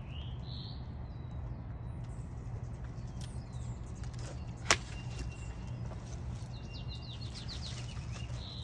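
Long-handled loppers closing through a plum branch in one sharp snap about halfway through, over a steady low hum. Small birds chirp quick runs of notes at the start and near the end.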